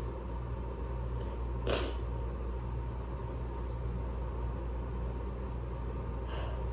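Steady low hum of room noise, with one short sharp sniff about two seconds in and a fainter breath near the end.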